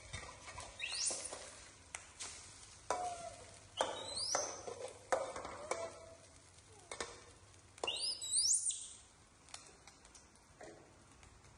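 Young monkeys giving high, rising squeaky calls in three short bouts, about a second in, around four seconds in and near eight seconds in. Between them, a metal spatula clinks and scrapes in a small metal wok as an egg on toast fries.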